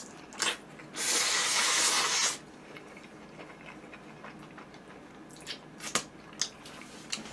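A person slurping instant noodles in one long, loud hissing slurp lasting about a second, then a few light clicks and taps of chopsticks against the bowl.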